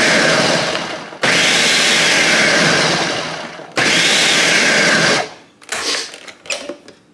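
Countertop blender pulsing a chunky mix of fried chilies, peanuts and sesame seeds in oil: three short pulses, each spinning up and winding down, to break the peanut pieces a little finer. A few light knocks follow after the motor stops.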